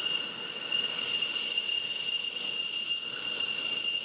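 Twin turbofan engines of taxiing F-15 fighter jets whining at low power: one steady high-pitched tone with several higher tones above it.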